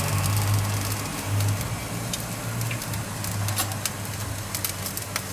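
Pork shoulder sizzling on a very hot electric tabletop grill, with scattered sharp crackles over a steady low hum.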